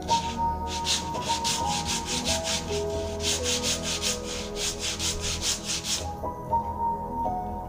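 A small wooden block rubbed by hand back and forth on a flat sanding disc, the grit rasping in quick, regular strokes that stop about six seconds in. Soft melodic background music plays under it.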